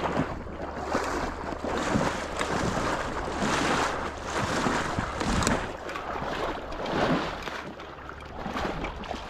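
Marsh water sloshing and splashing in uneven surges about every second or so, over a steady low rumble of wind on the microphone.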